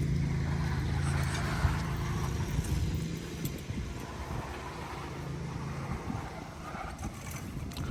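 An engine running steadily with a low hum, which weakens about three and a half seconds in to a rougher, quieter rumble.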